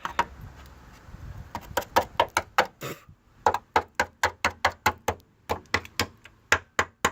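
Rapid knocking on a car's underbody sheet metal, about four to five taps a second with a short break partway through: the metal is being tapped to test it, and it gives the solid sound of sound metal rather than rot.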